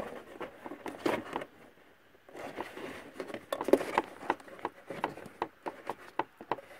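Fingers working at the plastic clip that holds the windscreen washer pump's wire on the plastic reservoir, trying to free it: irregular small clicks, scrapes and rustles, with a short quiet pause about two seconds in.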